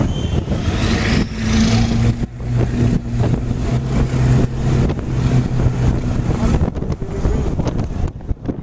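Motor vehicle engine running with a steady drone, mixed with wind and road rush, heard from the open bed of a moving pickup truck; the drone fades out about two seconds before the end.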